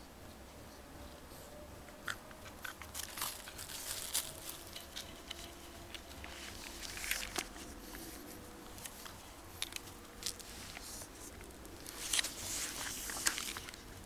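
French bulldog puppy chewing and gnawing: irregular crunches and crackling clicks, coming thicker and louder near the end.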